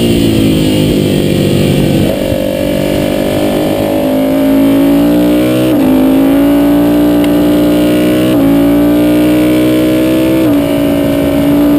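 Ducati sport bike's L-twin engine heard from the rider's seat on track: the engine note falls for the first two seconds, then climbs hard under acceleration, with quick upshifts about six, eight and a half and ten and a half seconds in.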